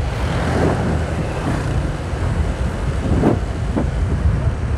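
Motorcycle engine running steadily at low street-riding speed, with wind noise on the microphone.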